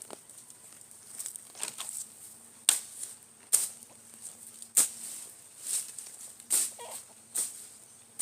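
Footsteps walking at an even pace, about one step a second, over a faint steady high hiss.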